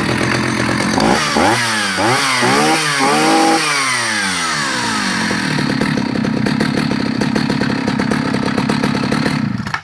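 Husqvarna L65 two-stroke chainsaw running, its throttle blipped up and down several times. It then falls in one long glide from high revs straight back to a steady idle and cuts off abruptly near the end. A warm restart: the saw comes cleanly back to idle from full revs.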